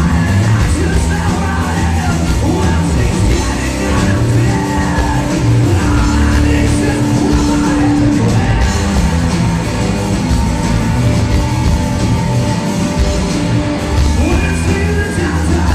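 Rock band playing live on electric guitars, bass and drums, with sung and shouted vocals. A single note is held for several seconds in the middle.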